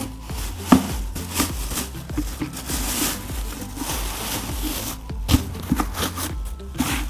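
A thin black plastic garbage bag rustling and crinkling as it is spread inside a plastic dustbin and folded over the rim. There are a couple of sharper taps, about a second in and just after five seconds.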